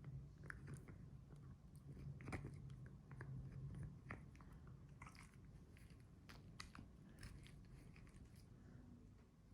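A dog chewing a crunchy treat: faint, irregular crunches and clicks of its teeth, over a low steady hum.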